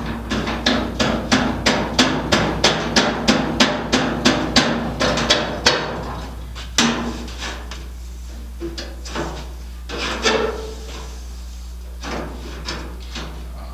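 Rapid hammer strikes, about three a second for some six seconds, followed by a few scattered knocks.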